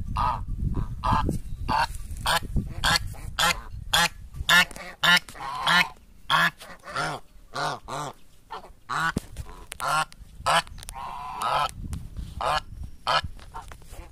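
A flock of brown Chinese geese honking over and over, short loud calls coming one or two a second and sometimes overlapping.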